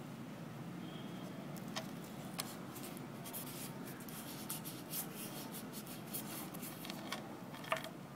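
Paper rubbing and scratching under fingertips as a sheet is folded and pressed around a small wooden block, with a few light clicks, over a low steady hum.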